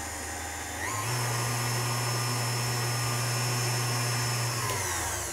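KitchenAid Artisan stand mixer running with its wire whisk, beating egg whites and hot sugar syrup into Italian meringue. The motor whine steps up in pitch about a second in as it comes up to medium speed, holds steady, and winds down near the end.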